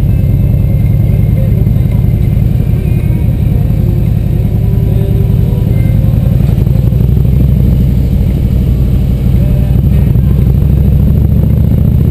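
Touring motorcycle's engine running under way, a steady low rumble picked up by a camera mounted on the bike.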